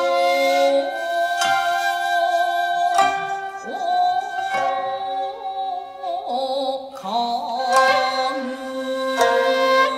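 Japanese jiuta chamber music: plucked sangen (shamisen) and koto notes, struck every second or two, under long held shakuhachi tones.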